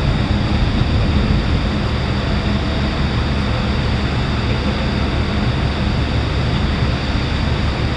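Steady low engine rumble with a faint hum, over a continuous noisy wash that does not change.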